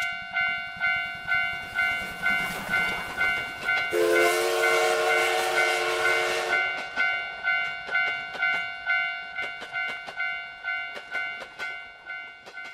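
Japanese railroad crossing warning bell ringing at about two strikes a second as a train passes. A train horn sounds for about two and a half seconds, starting about four seconds in. Then wheel clatter mixes with the bell and both fade near the end.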